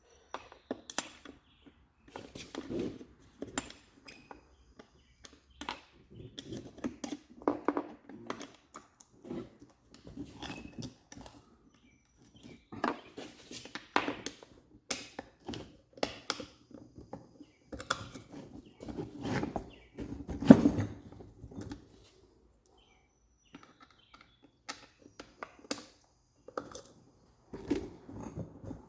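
Irregular clicks, taps and knocks of an Allen wrench and metal parts being handled while the Allen-head set screw on a surface cleaner's new swivel is tightened.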